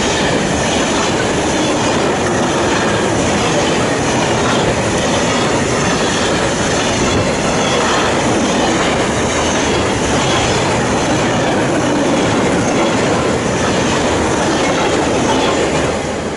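Freight train of silo tank wagons passing close by, a steady rumble and clatter of wheels on the rails; the sound drops off near the end as the last wagon goes by.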